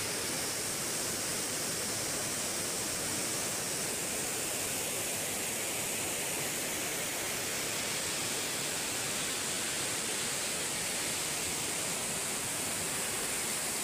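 Muddy floodwater of a swollen river rushing and churning past in a steady noise.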